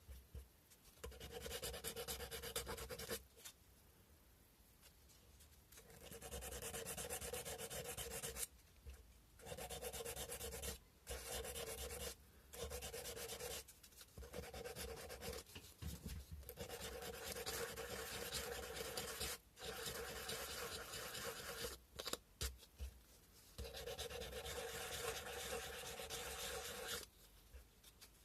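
Sandpaper rubbed by hand over a carved cow-bone fish hook: scratchy strokes in runs of several seconds, stopping for pauses of about a second up to a few seconds.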